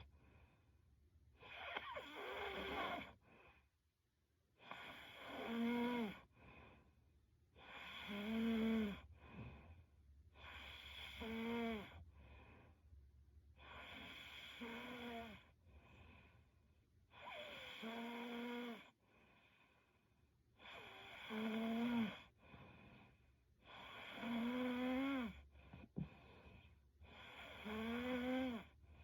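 A young woman snoring in her sleep: a slow, regular run of about nine snores, one roughly every three seconds, each carrying a steady hum-like pitch.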